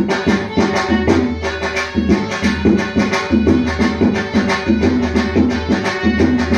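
Live Rajasthani folk music: a barrel hand drum (dholak) plays a quick, steady rhythm under sustained melodic accompaniment.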